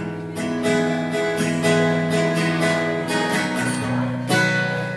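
Acoustic guitar strummed in a steady rhythm, playing the opening chords of a song, with a chord change a little past four seconds in.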